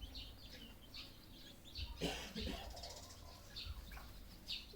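Red junglefowl (wild chickens) calling: short high chirps and peeps scattered throughout, with a louder, lower call about two seconds in.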